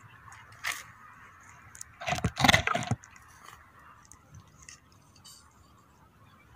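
Close handling noise of the angler's gear: a loud rattling scrape about two seconds in, lasting about a second, with a few faint clicks around it.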